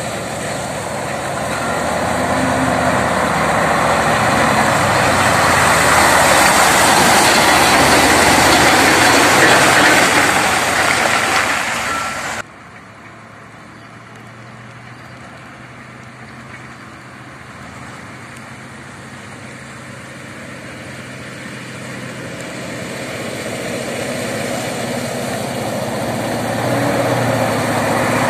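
Heavy diesel truck engines pulling hard up a slippery mud slope. The first truck's engine swells loud as it passes close and cuts off abruptly about halfway through; then a Mitsubishi Fuso truck's engine grows steadily louder as it approaches.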